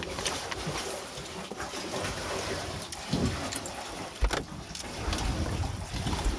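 Steady wind and sea noise aboard a boat at sea, with gusts of wind rumbling on the microphone and a few light knocks.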